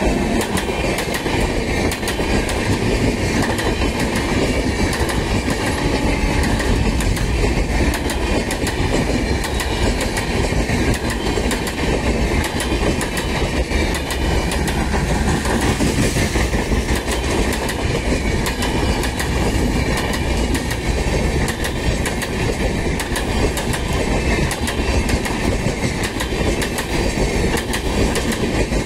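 Indian Railways passenger coaches rolling past close by at speed, a steady loud rumble with the wheels clattering rapidly over the rail joints.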